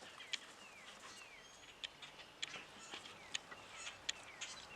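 Faint birdsong: short falling chirps and sharp high chip notes scattered throughout, over a light outdoor hiss.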